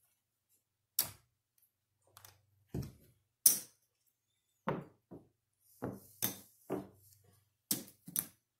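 Casino chips clacking as they are picked up and set down on a craps table layout: about a dozen separate sharp clicks at uneven intervals, the loudest about three and a half seconds in.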